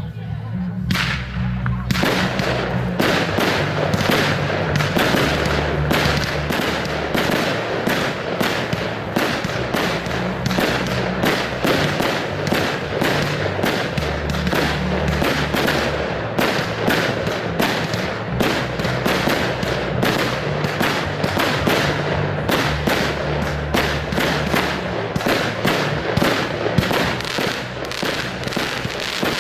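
A fireworks display going off in a dense, continuous barrage of sharp bangs and crackles that starts to thicken about two seconds in. Music plays underneath.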